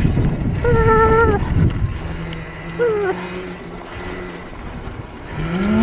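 Electric minibike's motor whining as it is ridden on a slick snowy street, with wind rumbling on the microphone in the first couple of seconds. A steady low motor hum follows, and the motor's pitch rises again near the end.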